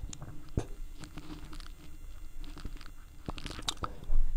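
Faint, scattered clicks and taps from a phone being handled and tapped, over low room noise.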